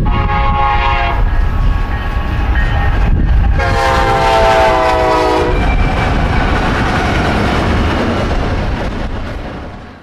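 Nathan K5LLA five-chime locomotive air horn sounding a short blast, then a longer blast of about two seconds about three and a half seconds in, its pitch sagging slightly. Beneath it is the steady rumble and wheel clatter of a passing double-stack freight train.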